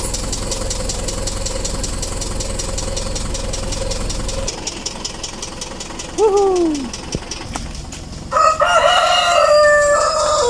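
A vehicle engine idles steadily and then cuts off suddenly about four and a half seconds in. A rooster then gives a short falling call about six seconds in and crows loudly for about two seconds near the end.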